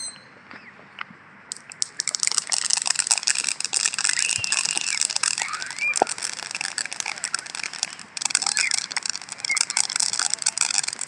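Crackling firework fountain throwing sparks: a dense, fast crackle that starts about two seconds in, drops out briefly near eight seconds and then picks up again.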